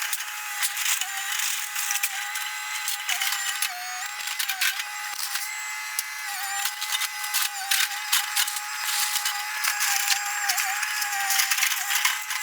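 Excavator demolishing a wood-frame house in sped-up footage: the engine is raised to a high, wavering tone, over dense rapid clicks and cracks of breaking debris.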